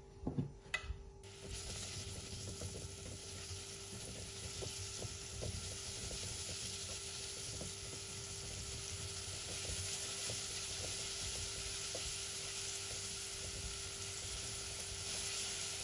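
Chopped onion and garlic sizzling in hot vegetable oil in a nonstick pot, starting about a second in and running steadily, with the light scrape and tick of a silicone spatula stirring them. A faint steady hum lies underneath.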